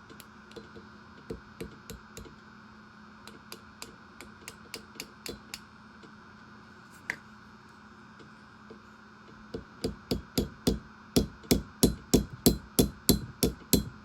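Hammer tapping: scattered light taps at first, then a fast run of much harder strikes, about three a second, through the last few seconds.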